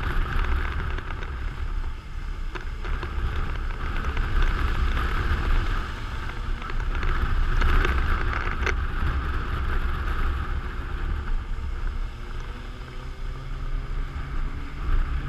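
Riding a motorcycle on a wet road in rain: wind buffeting a helmet-mounted microphone, with a steady hiss of tyres and spray on the wet tarmac. A couple of sharp ticks come about three seconds in and near nine seconds.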